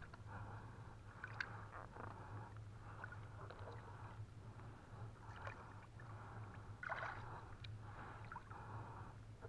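Faint water splashing and dripping in short washes, about once a second, as a trammel net and its floats are paid out by hand into a river, over a steady low hum.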